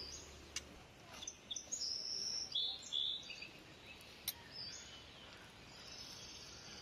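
Small birds chirping with short high calls and brief whistled notes, busiest about two to three seconds in, with a couple of sharp clicks.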